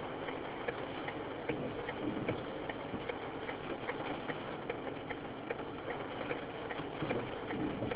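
Car idling while stopped in traffic, heard from inside the cabin: a steady low running noise with a light, regular ticking of about two to three ticks a second.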